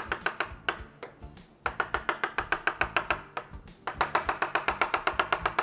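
Kitchen knife chopping soft, peeled roasted eggplant, about seven quick strikes a second, to mince it almost to a paste. The chopping pauses briefly about a second in and again past three seconds.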